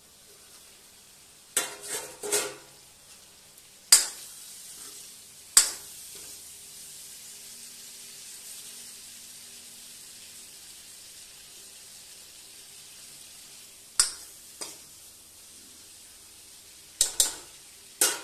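Karonda and green chilli sabji sizzling softly in a kadhai, with sharp metal clanks of a steel plate lid and a steel ladle against the pan as the lid comes off and the vegetables are stirred. A quick cluster of clanks comes early, then single knocks every few seconds.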